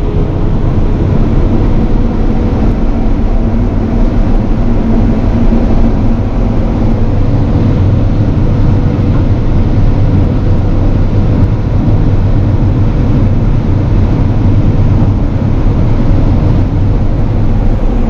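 Combine harvester running steadily while shelling corn and climbing a knoll: a constant, loud mechanical drone with a steady low hum under it.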